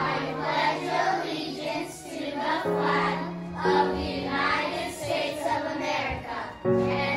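A children's choir singing with instrumental accompaniment, the held chords underneath changing a few times.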